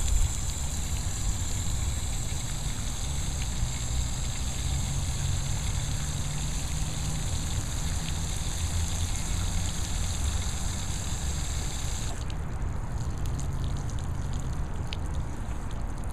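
Outdoor shower running, water spraying and splashing with a steady hiss that cuts off about twelve seconds in. A low steady rumble runs underneath.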